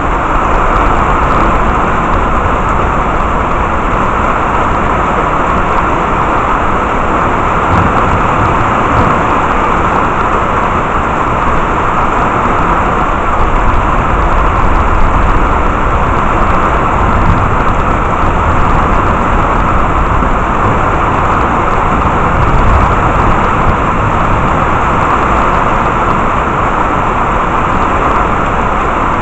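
Heavy rain falling steadily: a loud, even hiss with no thunder.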